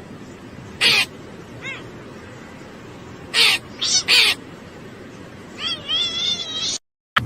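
An animal making four short, harsh calls, then a longer call that wavers up and down in pitch. The sound cuts out briefly near the end.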